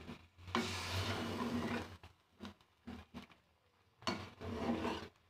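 Metal spoon stirring and scraping chicken and cauliflower through masala in a metal pan, in several strokes with short pauses between.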